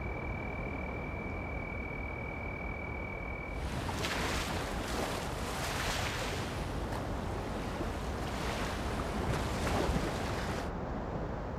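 Ocean surf at night, waves washing in with several surges, starting abruptly about three and a half seconds in and dropping away near the end. Before it there is only a low background hiss with a thin, steady high-pitched tone.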